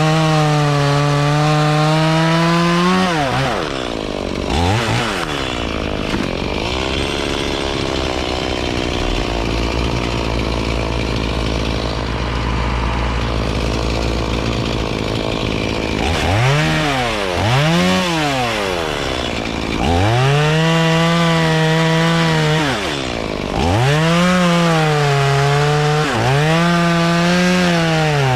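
Chainsaw revving and cutting walnut wood: several full-throttle runs of a few seconds each, the pitch sagging as the chain bites. It drops to a lower, quieter run for a long stretch in the middle.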